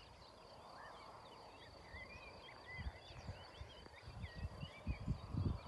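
Songbirds chirping and singing in many short, quick notes over a steady high insect drone. From about halfway in, low irregular bumps and rumble on the microphone grow louder.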